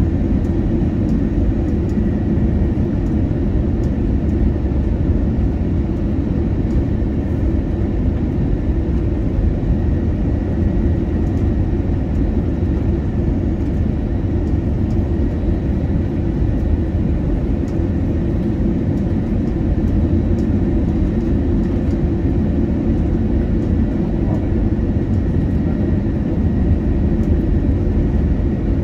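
Steady cabin noise of an Airbus A320neo on final approach: the rush of airflow and the engines, a dense low roar with a faint high whine over it, heard from inside the cabin.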